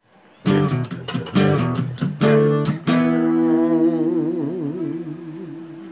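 Guitar intro music: four chords struck in quick succession, the last one held, wavering in pitch and slowly fading.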